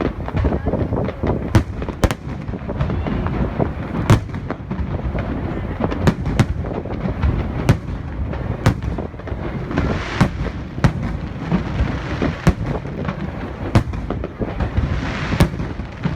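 Aerial fireworks display: sharp bangs of bursting shells, roughly one or two a second, over a continuous low rumble of explosions. A hiss swells twice, about ten seconds in and again near the end.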